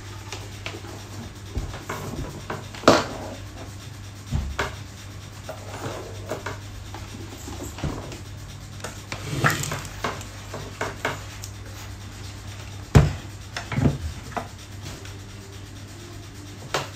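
Handling noise from plastic food processor parts, the motor base and jar being set down, picked up and fitted, as scattered knocks and clicks over a steady low hum.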